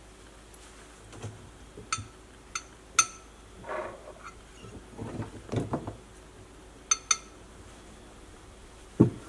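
Pliers clinking against the pipes and fittings under a kitchen sink: about five sharp metallic clinks, with rubbing noises in between and a dull knock near the end.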